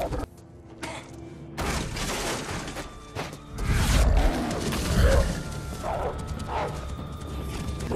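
Film soundtrack of score music mixed with action sound effects. It drops suddenly to a hush just after the start, then comes back with heavy low thuds and crashes around the middle, under a long held high note.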